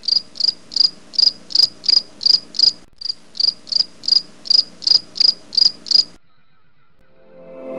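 A cricket chirping in an even rhythm, about three high chirps a second, over a faint steady hum. The chirping breaks off for a moment about three seconds in and stops about six seconds in.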